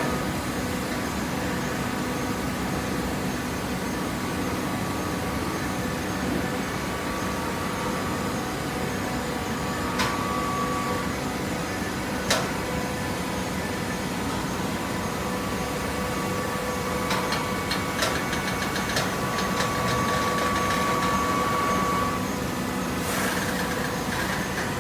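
Vertical hydraulic baler running with the steady hum of its hydraulic pump motor, with a couple of sharp clicks about halfway through and a short rattle later on.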